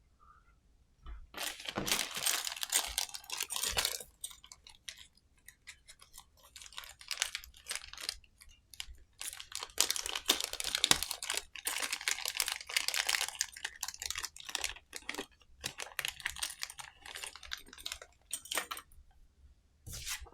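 Plastic packaging crinkling and rustling in bursts, with small clicks and taps as parts are handled.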